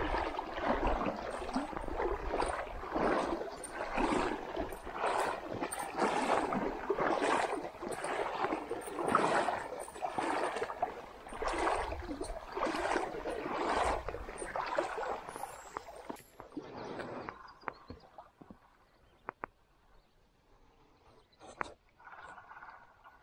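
Wading steps sloshing through a shallow creek, about one a second, which stop some 16 seconds in; after that a few light clicks.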